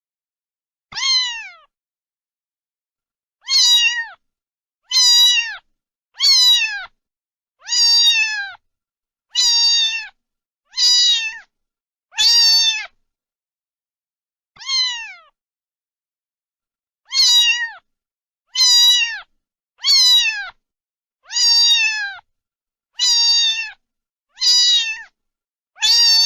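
Domestic cat meowing over and over, about sixteen short meows that each fall in pitch, coming roughly every second and a half with a longer pause about halfway through.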